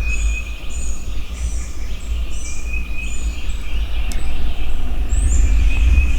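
Small songbirds chirping and singing in repeated short phrases over a steady low rumble.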